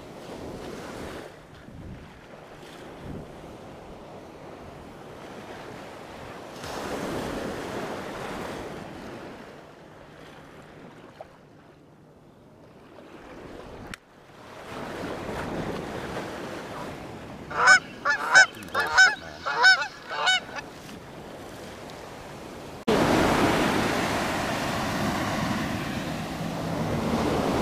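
Ocean surf washing on a beach, with a quick run of about seven loud, high calls a little past the middle. A heavy wind rumble on the microphone sets in suddenly near the end.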